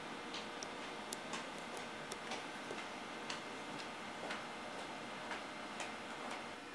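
Light, sharp ticking clicks over a steady hiss, irregular at first and then about two a second.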